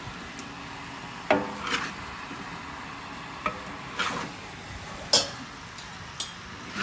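Food sizzling as it is stir-fried in a wok, with a metal spatula scraping and knocking against the pan about six times, the loudest stroke a little after five seconds in.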